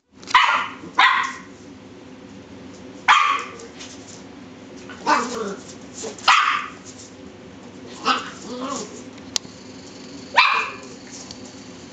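Cairn terrier puppy barking at a beetle on the floor: about seven short barks, spaced one to two seconds apart.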